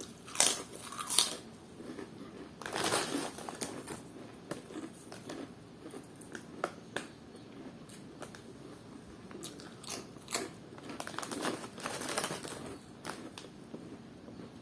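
A person biting and chewing crunchy snack food close to the microphone, with sharp crunches at irregular moments, the loudest near the start and again about ten to twelve seconds in.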